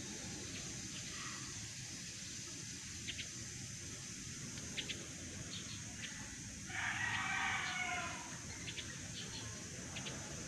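A rooster crowing once, a call of about a second and a half a little past the middle, over a steady high-pitched hiss and a few faint clicks.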